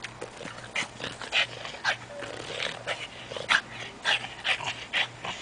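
A French bulldog playing on a rope toy hung from a tree, making a string of short, irregular dog noises and scuffles as it grabs, hangs and drops.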